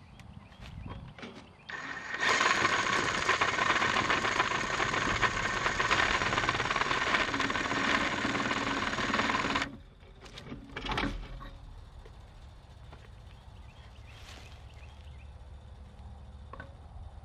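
Cordless drill running under load, boring a 3/4-inch bit through a rusty steel fence post. It runs steadily for about eight seconds, then stops abruptly.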